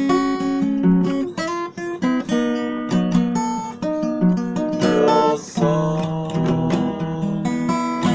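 Acoustic guitar playing a tune, with picked notes and chords changing every half second or so.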